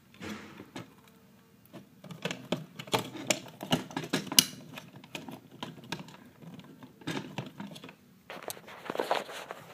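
Irregular light clicks and knocks of a Nerf blaster's plastic parts being handled and fitted back together by hand, with a short rustle near the end.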